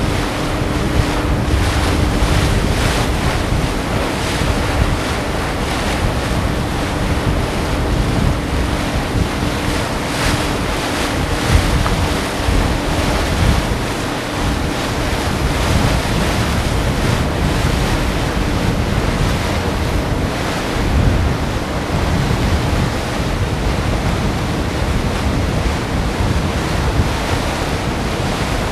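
Wind buffeting the microphone: a loud, gusty rushing noise that swells and eases, with a faint steady hum under it through the first half.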